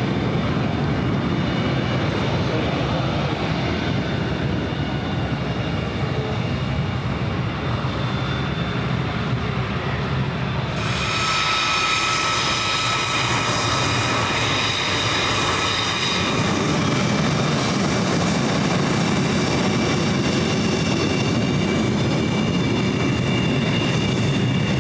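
F-22 Raptor's twin F119 turbofan engines running at taxi power: a steady jet rumble, with a high multi-tone whine that comes in sharply about eleven seconds in and stays on, strongest for the next five seconds.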